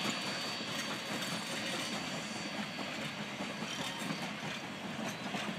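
Narrow-gauge wooden passenger coaches rolling past on the track, a steady running noise of wheels on the rails.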